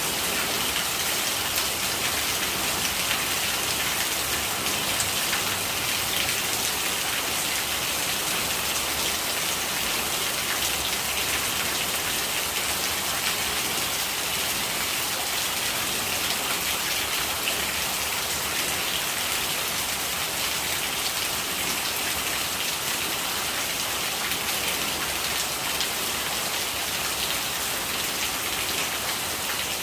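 Steady rain falling, with many small drop impacts on a surface, even and unbroken throughout.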